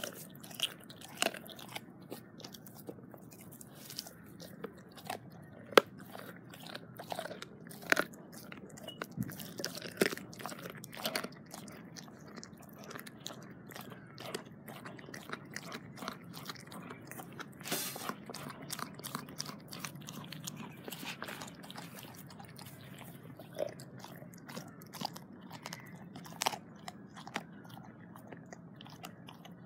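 Dog chewing a raw turkey neck, the bone crunching in irregular sharp cracks, the loudest about six and eight seconds in.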